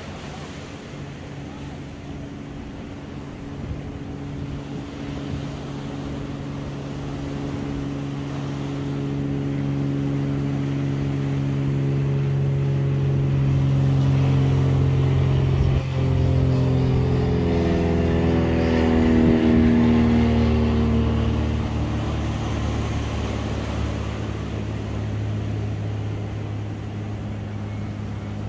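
An engine passes by: its hum builds for about fifteen seconds, drops in pitch as it goes past about two-thirds of the way in, then fades. Surf washes steadily underneath.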